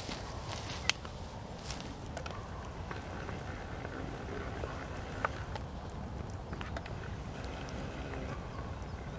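Open fire burning a heap of terry cloth on a bed of ash: a steady low rush with scattered small crackles and two sharper pops, about a second in and about five seconds in.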